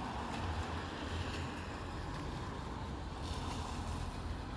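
Steady rushing noise of wind and a rain shower, with uneven low gusts.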